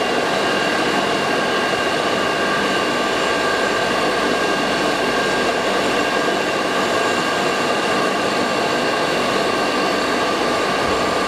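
Colloid-mill peanut butter grinder running steadily: an even mechanical drone with a steady high whine on top.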